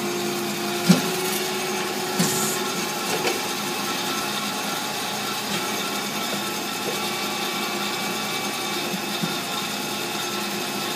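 AMADA HA250W automatic horizontal band saw running in its automatic cutting cycle, a steady machine hum with several steady tones. A sharp knock comes about a second in, and another knock with a short hiss a little after two seconds.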